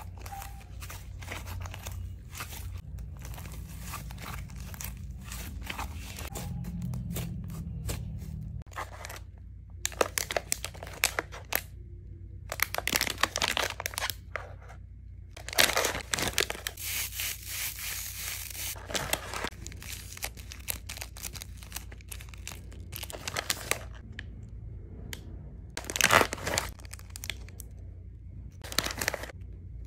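Glossy slime stretched and squeezed by hand, with fine wet clicks and pops. Then, from about ten seconds in, the plastic bags of a slime kit crinkle and rustle loudly as they are handled.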